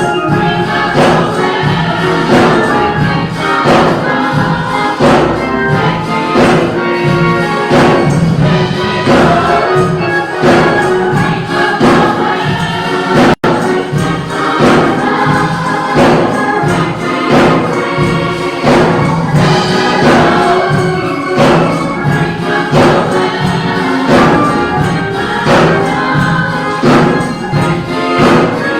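Gospel choir singing with instrumental accompaniment and a steady beat. The sound cuts out for an instant about halfway through.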